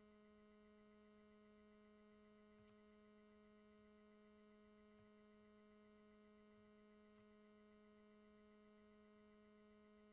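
Near silence: a faint steady hum with three or four faint clicks.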